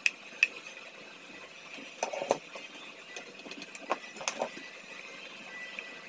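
Small clicks, taps and a brief clatter as a screwdriver turns a terminal-block screw to clamp a ferrule-ended wire and the plastic device is handled. Sharp clicks come near the start, a short rattle about two seconds in, and a few more clicks about four seconds in.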